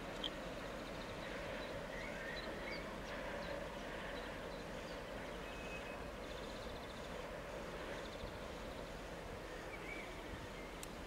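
Steady hum of diesel locomotives running in a rail yard, with birds chirping now and then.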